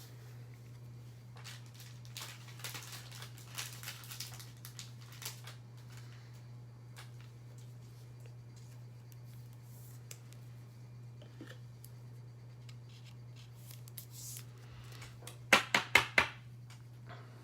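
Hands handling trading cards and their packaging: scratchy sliding and rustling, then a quick run of four sharp clicks near the end, over a steady low hum.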